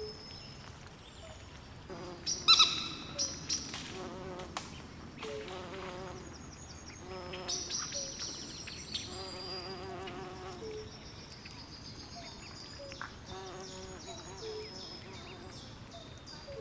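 Swamp night chorus of frogs and insects: many short high chirps repeating throughout, with lower pulsed trills and croaks coming and going. One louder, multi-pitched call stands out about two and a half seconds in.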